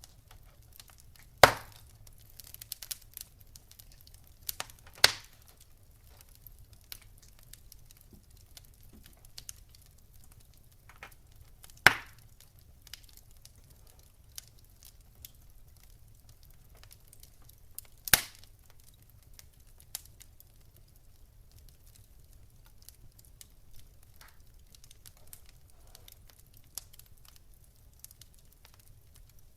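Wood fire crackling: many faint ticks and crackles with four loud, sharp pops spread through, at about 1.5, 5, 12 and 18 seconds in.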